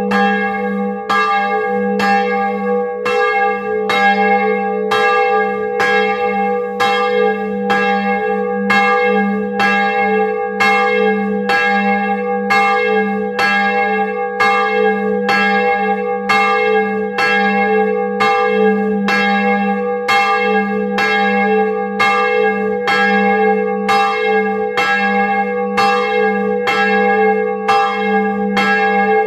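The 1658 bronze church bell Marie, tuned to G♯3, swinging full circle and struck steadily by its clapper, a bit more than one stroke a second. Each stroke rings on into the next, so the deep tone never dies away.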